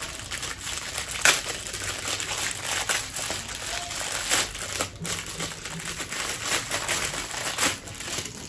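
Thin clear plastic packaging bag crinkling as hands work it open, a continuous crackle with a few sharper crinkles about a second in and again about four seconds in.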